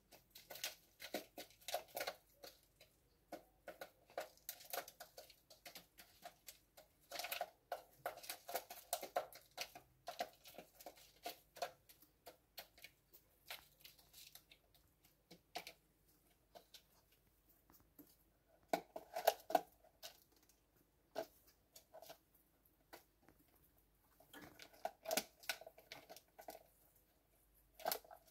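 Faint, irregular clicks and rustles coming in scattered clusters with quiet gaps between, the strongest clusters about two-thirds of the way through and again a little later.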